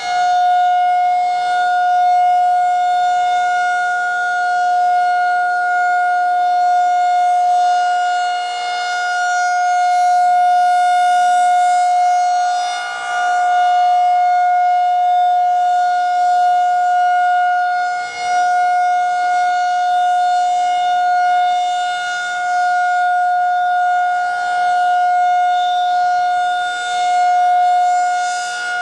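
Federal Signal 2001-130 outdoor warning siren sounding a steady tone on its monthly test. The loudness swells and dips about every five seconds as the siren head rotates.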